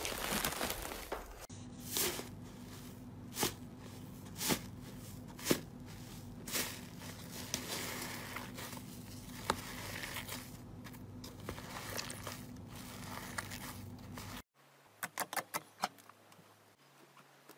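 Hands squeezing and kneading slime, making a crackly, squelchy texture with separate sharp pops and clicks every second or so. Near the end, after a cut, comes a quick run of sharp clicks while slime is pressed against a wire grill rack.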